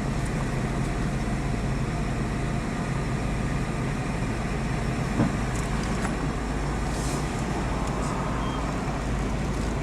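Car idling, heard from inside the cabin as a steady low hum.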